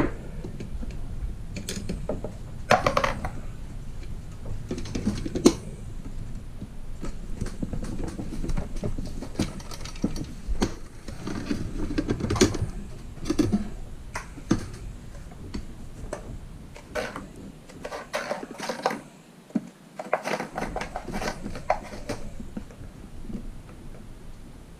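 Handling and taking apart a wind-charger controller: scattered clicks, knocks and scrapes of its plastic end cap, screws and aluminium case as the circuit board is slid out.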